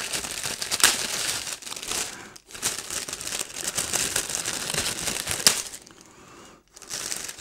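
Clear plastic protective sleeve crinkling as it is pulled off a speaker's front grille, with brief pauses about two and a half seconds in and again near the end.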